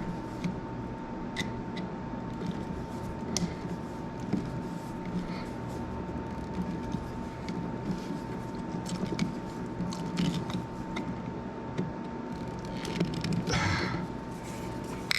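Small clicks and scrapes of a screwdriver tightening wires under the terminal screws of an electrical outlet, over a steady background hum. A longer scraping rustle comes near the end.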